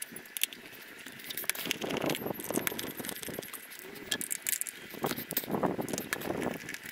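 Screwdriver and small metal screws clicking and clinking as the screws of a motorcycle airbox cover are undone and handled, with many short, irregular ticks.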